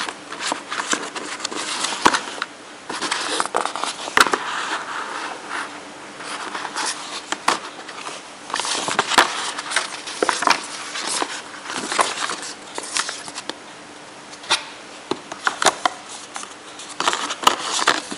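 Paper leaflets and the cardboard box and inserts of a graphics-card package being handled: irregular rustling, sliding and scraping with frequent sharp taps and clicks.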